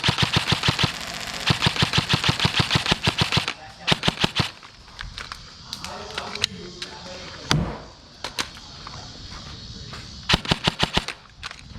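Airsoft rifles firing on full auto: several long, rapid bursts of BB shots, with a few single shots and shorter bursts between them near the end.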